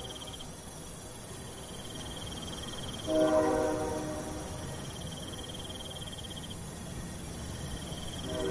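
Crickets or other insects trilling steadily in a high, pulsing chorus. A short low-pitched, horn-like tone sounds about three seconds in and again at the very end.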